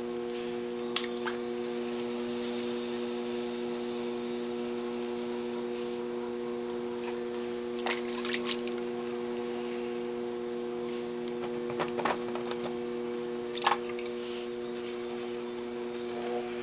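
Steady hum of an electric pottery wheel spinning, with a few brief wet squishes and clicks from hands and a rib working the wet clay pot.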